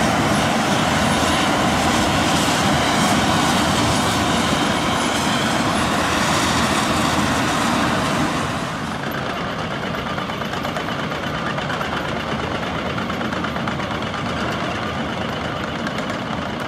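Asphalt milling machine (cold planer) grinding off the road surface, a loud steady mix of engine and cutting noise as it feeds millings up its conveyor into a dump truck. About eight seconds in the sound becomes a little quieter and duller.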